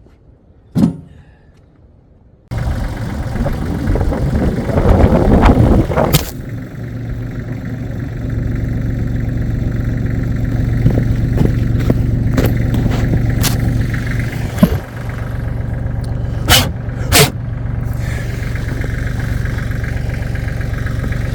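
Tractor engine running steadily. It cuts in suddenly a couple of seconds in, after one knock, and is later joined by a loud bang and several sharp clanks.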